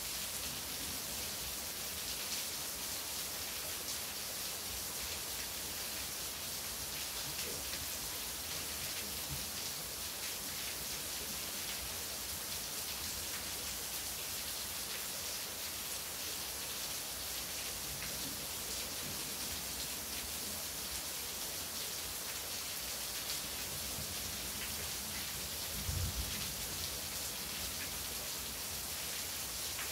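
Steady rain falling in a thunderstorm, with a brief low thump near the end.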